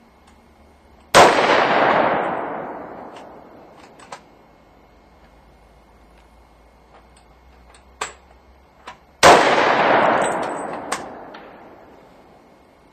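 Two pistol shots from a stock Glock 21 firing 230-grain +P .45 ACP, about eight seconds apart, each followed by a long echo that fades over two to three seconds. A few small sharp clicks fall between the shots.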